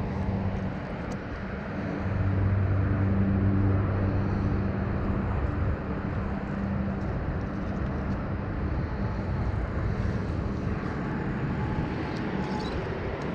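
Steady low engine drone over a rushing background noise. It swells about two seconds in and slowly eases off.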